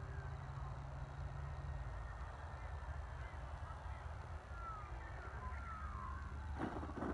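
Low wind rumble with a few short gliding bird calls in the second half, then a brief clatter of knocks near the end.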